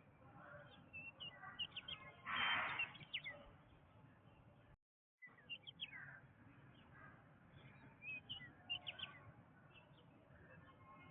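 Jungle ambience of many birds chirping and calling in short, high notes. About two and a half seconds in there is one louder, harsher burst. Just before five seconds in, the sound cuts out completely for a moment.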